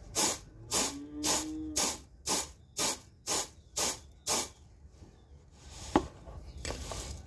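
Wheat grain being tossed and shaken in a large steel plate to clean it: about nine rhythmic swishes, two a second, that stop about four and a half seconds in, then one sharp click.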